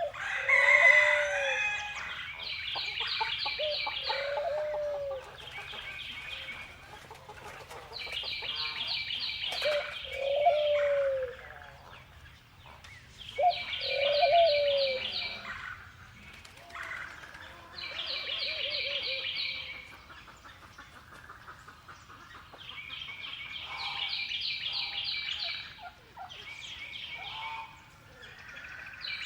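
Outdoor bird ambience: a high, rapid trilling call repeats in bursts of a second or two, over low rising-and-falling calls every few seconds, with a louder call about a second in.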